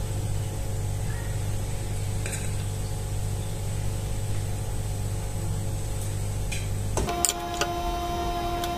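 Steady low hum with a few faint scrapes of a metal spoon against a steel pot as rice is served. About seven seconds in, the hum stops and a steady pitched tone takes over.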